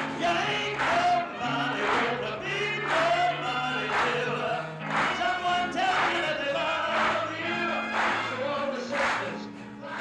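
Live band music with a crowd of voices singing together and hand claps keeping a steady beat about once a second.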